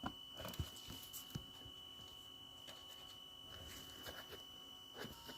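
Faint scattered clicks and knocks, a few in the first second and a half and again near the end, over a faint steady high-pitched tone.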